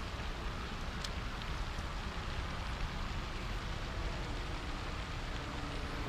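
Steady wind rumble and hiss on the microphone, with one sharp click about a second in.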